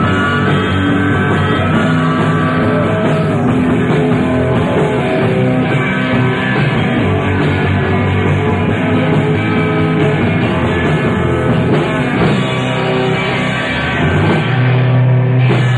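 Rock band playing live: electric guitar, bass and drums together through amplifiers. About fourteen and a half seconds in, the song closes on a long held low note.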